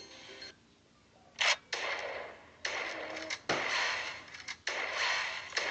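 Cloud slime being stretched and squished by hand, giving crackly, rustling noise in several stretches of about a second each with short breaks between.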